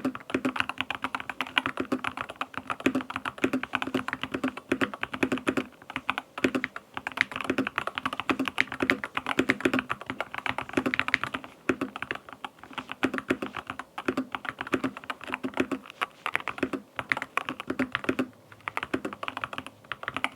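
Keychron K2 HE mechanical keyboard with magnetic Hall-effect switches being typed on quickly, a dense run of keystroke clacks with a few short pauses.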